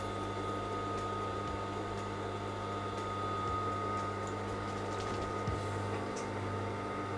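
A steady electrical hum with several fixed tones, with a few faint ticks from handling over it.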